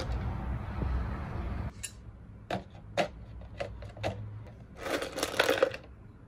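Small steel bolts clinking against one another and the plastic tub as they are stirred in Evapo-Rust solution: a string of separate sharp clicks, with a short clatter near the end.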